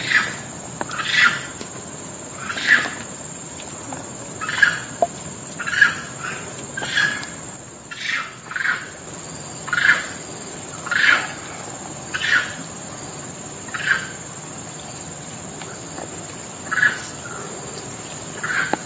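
Hands squeezing wet grated coconut in a bowl to press out coconut milk, a short squelch about once a second. A steady high insect drone runs underneath.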